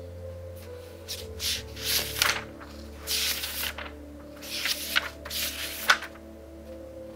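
Pages of a very thick book turned quickly one after another: about five papery swishes, roughly one a second, each ending in a crisp crackle. Soft music plays faintly underneath.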